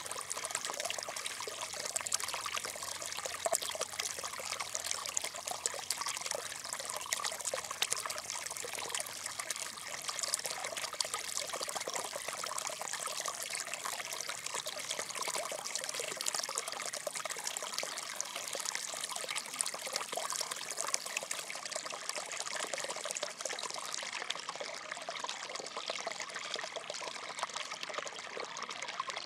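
Steady trickling, water-like noise: a dense crackling hiss with no pauses.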